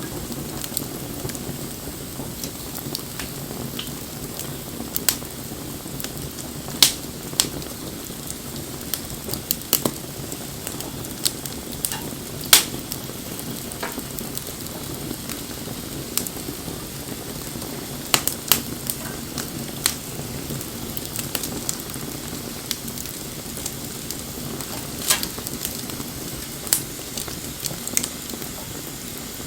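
Wood fire burning: a steady low rush under irregular sharp crackles and pops, a few of them much louder.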